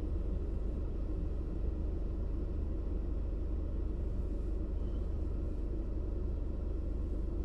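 Steady low rumble inside a car's cabin while the car idles at a standstill.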